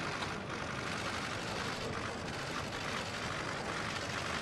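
Steady outdoor ambient noise: an even rushing hiss with no distinct events or clear voices.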